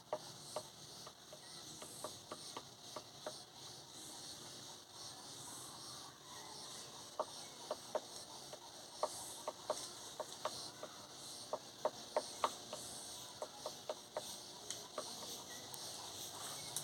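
Woodpecker pecking at wood: irregular single knocks, most of them packed between about seven and thirteen seconds in, over a steady high hiss of insects.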